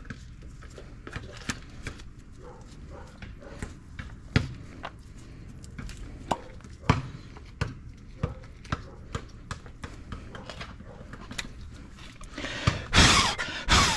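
Scattered light clicks and taps as the rear brake caliper's slide pins and parts are handled and greased, with a louder rustling burst near the end.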